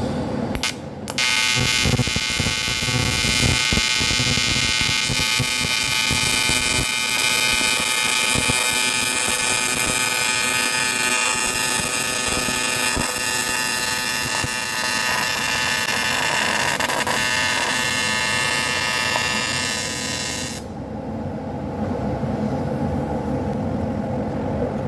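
AC TIG welding arc on aluminum bronze: a steady, high, buzzing hiss that strikes about a second in and cuts off sharply a few seconds before the end, over a steady low hum.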